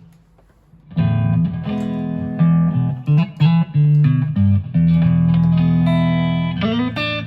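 Electric guitar played through a Boss Katana amp. After a short pause, sustained notes and chords ring out from about a second in, with a quick slide up in pitch near the end. The amp is working.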